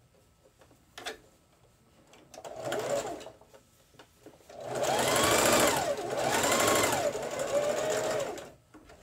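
Electric sewing machine stitching a folded hem in light fabric: a short run, then a longer run a couple of seconds later whose motor pitch rises and falls twice as it speeds up and slows under the foot pedal.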